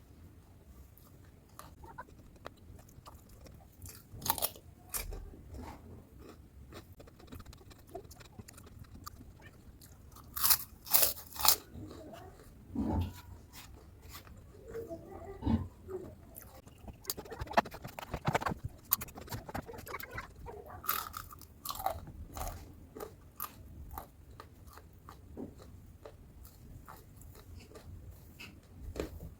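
Close-up biting and chewing of crunchy food from a meal of crispy batter-fried tempeh and raw cucumber. Irregular sharp crunches sound over softer chewing, with three loud crunches in quick succession about ten seconds in.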